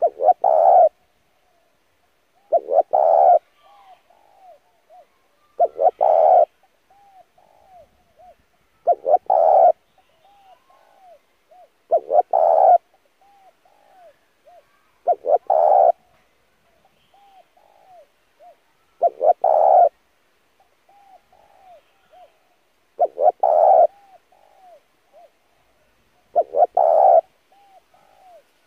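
Spotted dove cooing, a loud coo phrase about every three to four seconds, nine in all, with soft hooked coo notes between the phrases.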